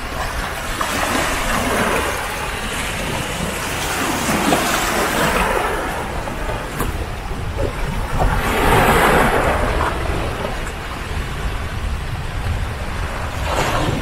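Small waves washing in over rocks and pebbles at the water's edge, swelling and falling away every few seconds over a steady low rumble.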